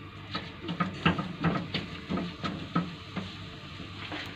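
Silicone spatula stirring and pressing a thick rice-flour dough around a nonstick frying pan, soft scraping strokes about three a second that ease off near the end.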